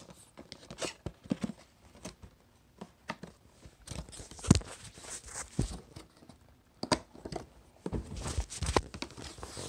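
Packaging being handled and opened by hand: irregular rustling, crinkling and tearing with scattered knocks, the loudest knock about four and a half seconds in and denser rustling near the end.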